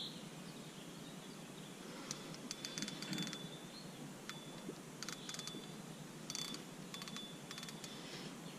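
Fishing reel clicking in rapid bursts, several short runs with a thin high ringing note, as a hooked river carp is played on a heavy rod.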